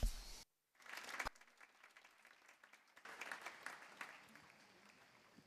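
Faint applause from a large audience, broken by a sudden gap of silence near the start and a sharp click about a second in, then carrying on faintly and fading out.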